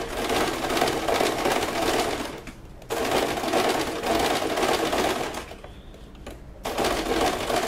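Domestic electric sewing machine running a straight stitch through a fabric-covered foam bra cup. It sews in bursts: a run of about two and a half seconds, a brief stop, another run, a pause of about a second, then it starts again near the end.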